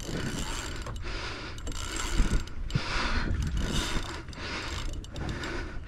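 Spinning reel being cranked fast: a whirring of the reel's gears that swells about twice a second with each turn of the handle, over a steady low rumble.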